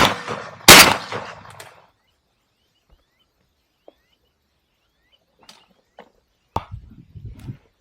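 Two shotgun shots fired in quick succession, about three quarters of a second apart, each echoing away over about a second. A few faint knocks follow near the end.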